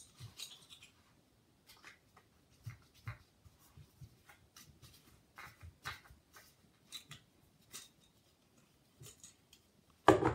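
Handling noise from a Fenix CL30R camping lantern being turned over in the hands: scattered faint clicks, taps and light rubbing of its plastic body and end caps.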